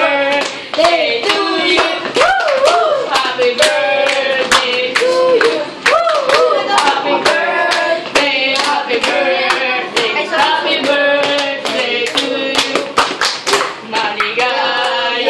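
A group of schoolchildren clapping along in a steady beat while voices sing a birthday song.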